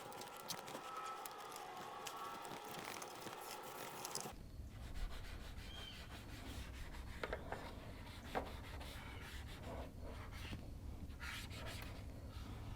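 Hands rubbing and scraping lightly on adhesive vinyl graphics being smoothed onto motorcycle bodywork, with scattered small ticks and taps. A faint steady whine runs underneath for the first four seconds and stops abruptly, leaving a low hum.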